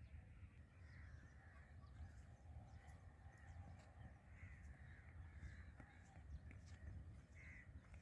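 Faint crows cawing, scattered calls through a quiet background with a low steady rumble.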